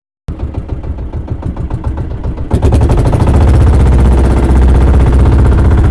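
Outrigger fishing boat's engine running with a steady, even pulse; it becomes much louder about two and a half seconds in.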